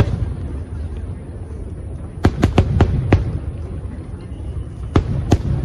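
Aerial fireworks bursting over a continuous low rumble: a quick cluster of about five sharp bangs around two seconds in, then two more near the end.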